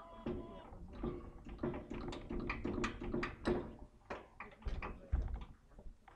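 Quick metal clicks, knocks and scrapes from hand work on a portable band sawmill's blade housing while the band blade is being taken off, with two heavier thumps near the end.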